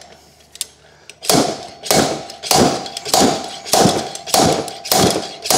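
Slide hammer on a blind bearing puller being worked, its weight clanking metal-on-metal against the stop in a steady run of about eight blows over four seconds, each with a short metallic ring. The blows begin about a second in and are drawing a stuck bearing slowly out of its housing.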